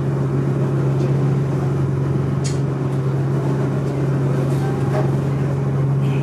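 Passenger ferry's engine running with a steady low drone, heard from inside the cabin, with one brief click about two and a half seconds in.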